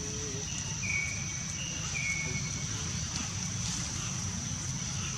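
Outdoor ambience: a steady high-pitched insect drone, with two short whistled bird calls about one and two seconds in, each stepping down in pitch.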